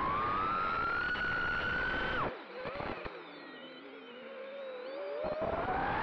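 Brushless motors (1407 3600kv) of a 3-inch FPV quadcopter spinning Gemfan 3052 props, a whine of several close tones climbing in pitch under throttle. About two seconds in the throttle is cut and the whine drops sharply to a lower, quieter hum. Over the last couple of seconds it rises in pitch again as the throttle comes back on.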